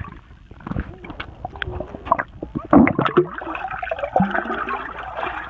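Swimming-pool water heard with the microphone underwater: muffled bubbling, gurgling and sloshing from a child kicking and splashing, with irregular dull knocks. A denser rush of bubbles about three seconds in.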